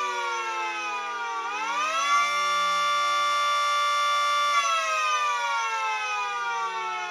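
Miniature sirens sounding an alert signal: the tone drops, swoops back up, holds steady for about two and a half seconds, then winds down again.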